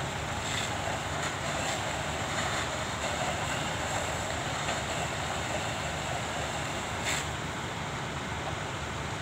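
Steady low rumble of fire engines' diesel engines running at the scene of a building fire, under a constant hiss, with a few short sharp cracks; the loudest crack comes about seven seconds in.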